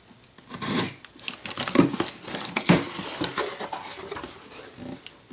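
A blade slitting the packing tape on a cardboard shipping box, then the cardboard flaps being pulled open and plastic air-pillow packing crinkling. Irregular scraping and rustling.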